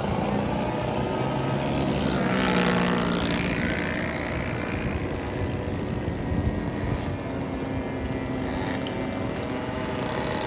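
Radio-controlled model airplane engines droning in the air, with one plane passing close about two seconds in and its pitch falling as it goes by.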